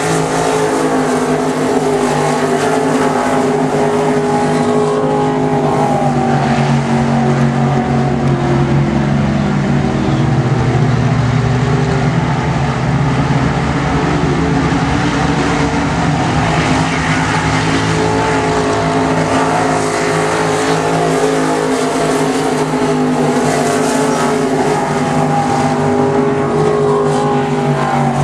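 A pack of dirt-track modified race cars' V8 engines running at racing speed, several engine notes overlapping and rising and falling as the cars go around. It gets louder about ten seconds in as cars pass close.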